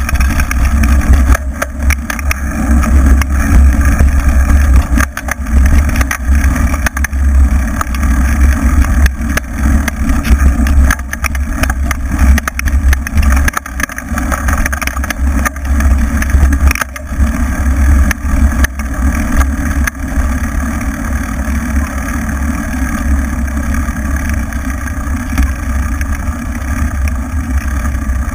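A bike riding fast over a bumpy dirt track: constant wind rumble on the microphone, with frequent knocks and rattles from the knobby tyre hitting bumps.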